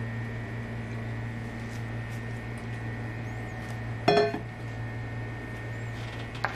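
Stainless-steel cookware giving one sharp, ringing metallic clink about four seconds in, and a lighter click near the end. A steady low hum runs underneath.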